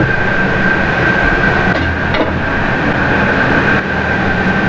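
Steady, loud machine-like drone with a constant high whine running through it, and a light knock about two seconds in.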